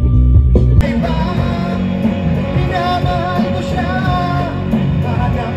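Electric guitar sounding sustained plucked notes, cut off abruptly under a second in by a rock song with a singing voice.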